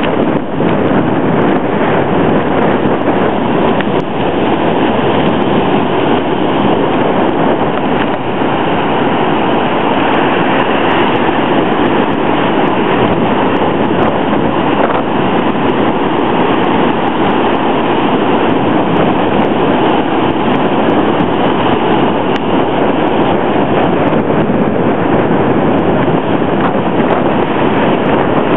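Steady, loud rush of hurricane wind and heavy surf breaking on the beach.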